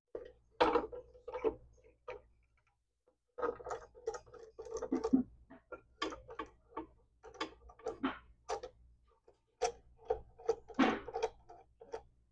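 Irregular metal clicking from a part being worked by hand through a rusted hole in a miter saw. The clicking comes in three spells with short pauses between them.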